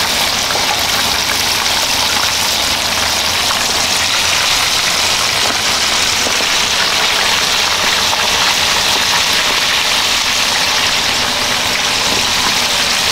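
Chicken deep-frying in a wok of hot oil: a steady, loud sizzle that does not let up.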